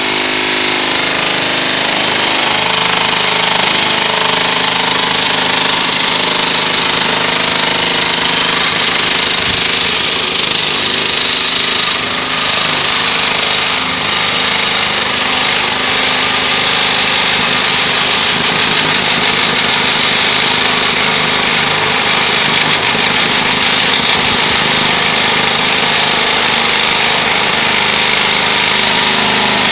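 Electric vibrating table running steadily under concrete-filled paving moulds: a constant mechanical hum and rattle as the wet concrete is shaken and compacted.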